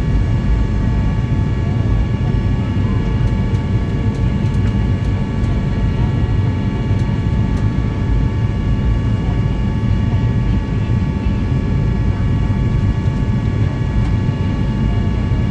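Steady airliner cabin noise during the descent to land: a constant low rumble of engines and airflow, with a set of steady high engine tones above it.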